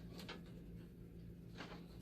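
A few faint clicks and light knocks from small parts and connectors being handled, near the start and again near the end, over a steady low hum.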